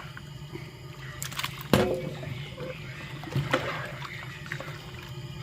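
Pot of pork ribs heating on a gas burner, liquid sloshing and trickling, only simmering rather than bubbling hard on the gas flame. A steady low hum runs underneath, with a few sharp knocks, the loudest a little under two seconds in.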